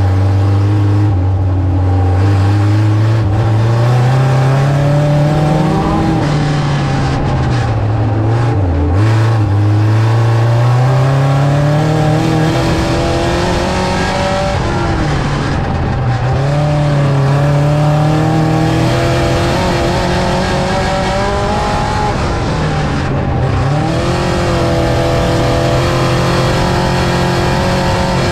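Ford Thunderbird mini stock race car's engine under race load on a dirt track, its pitch climbing as it accelerates and dropping back each time the throttle is lifted, several times over, with the engine held high between drops.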